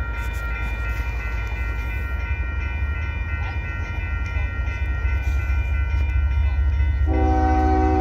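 Approaching diesel freight train led by a CSX locomotive: a low rumble grows louder over a steady high ringing, and about a second before the end the locomotive's horn starts a blast.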